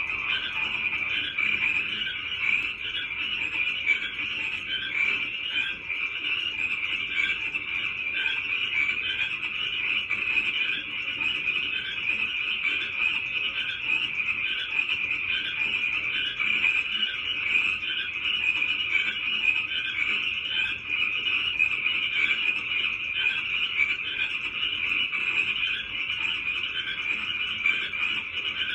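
A chorus of many frogs calling at once, their overlapping calls making a dense, steady din without pauses.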